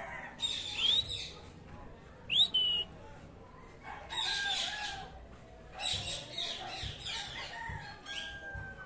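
Indian ringneck parakeet calling: two short, sharp rising chirps early on, followed by rougher, scratchy chattering bursts.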